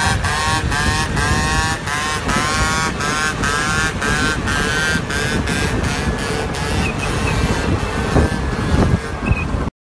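Yamaha Aerox scooter's engine revving high through a wheelie, its pitch rising and falling again roughly twice a second, then holding steadier. Heavy wind rumble sits under it, and the sound cuts off abruptly near the end.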